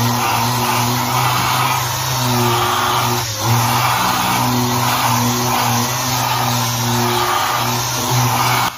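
Random orbital sander with a red sanding disc running against cured body filler on a car door panel. Its steady motor hum is overlaid by a gritty sanding noise that swells and fades as the pad is pushed back and forth, with a brief dip about three seconds in.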